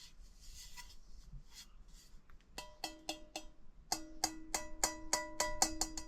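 A metal part of a NutriBullet 900 blender, taken for aluminium, being tapped with a tool so that it rings at a clear pitch: a few light handling clicks, then three taps a bit over halfway through, then a quick run of about three or four taps a second.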